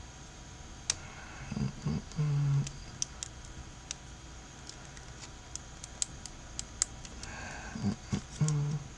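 Scattered small, sharp plastic clicks as a smartphone's plastic inner casing is flexed and pried along its snap clips. The casing is still held by a missed screw and does not come away. Twice a man gives a short low murmur or hum.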